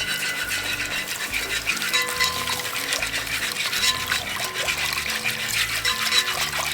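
Flour and butter roux crackling and sizzling steadily in the pot as it is stirred.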